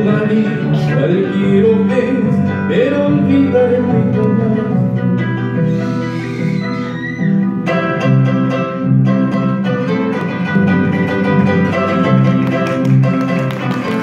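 Solo harp playing an instrumental passage: a plucked melody in the upper strings over a steady plucked bass line.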